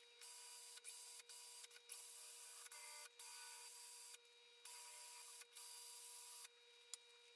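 Makita cordless drill whirring faintly in short on-off bursts, spinning a wooden drill handle held in its chuck while sandpaper is pressed against the turning wood.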